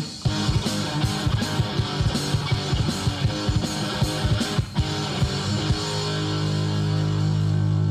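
Hardcore punk band playing an instrumental passage on guitar and drums at a fast beat. About six seconds in, the drums stop and the band holds a single chord that rings on.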